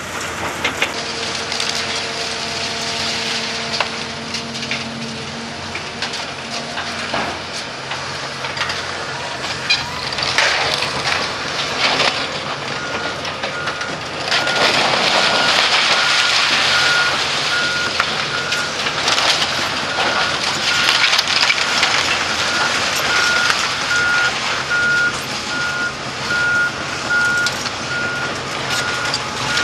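Hydraulic demolition excavators tearing into a building: diesel engines running under constant crunching and scraping of metal and falling debris, loudest for a few seconds around halfway. A reversing alarm starts beeping steadily about halfway through and keeps going.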